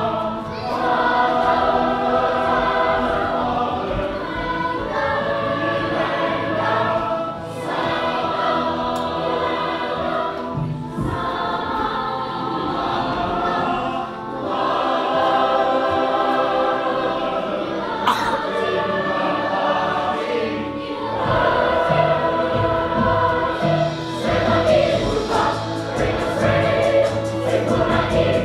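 Opera chorus singing with musical accompaniment, in sustained phrases a few seconds long separated by short breaths.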